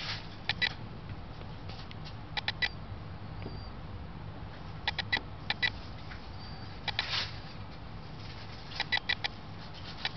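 Short high squeaks in quick clusters of two to four, four times over, from a mouse being swallowed by a California king snake. There are also two brief hissing noises, one at the start and one about two thirds through, over a low steady hum.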